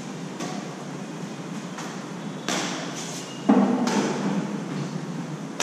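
Badminton rally: a string of sharp racket strikes on a shuttlecock, about six in five seconds, each ringing on in the hall. The loudest, with a heavier thud, comes about three and a half seconds in.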